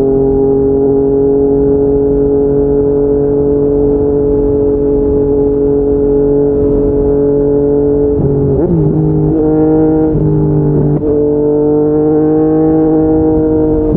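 Yamaha MT-09 inline-three engine running at a steady rpm on the move, a deep, even note. A little past halfway the pitch dips and shifts a few times, then settles slightly higher.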